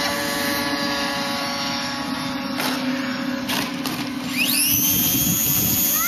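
Electric motor and propeller of a small RC model plane whining as it comes in to land, with two brief knocks midway. About four seconds in the motor spins up with a rising whine and holds a higher, louder pitch.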